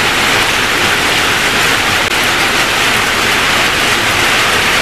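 Steady hiss of heavy rain, even and unbroken, with no other sound standing out.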